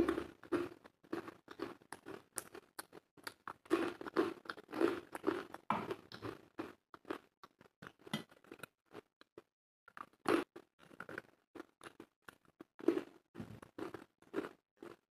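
A person chewing and eating food close to the microphone: many short, irregular mouth clicks and soft wet sounds, with a brief lull a little past halfway.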